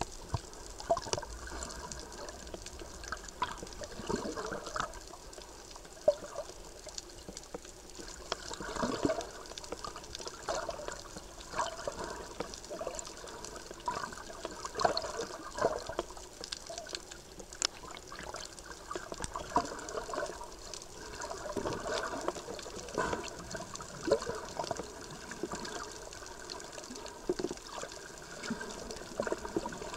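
Underwater recording: water gurgling and bubbling around the camera in irregular bursts every few seconds, over a steady bed of sharp clicks and crackle.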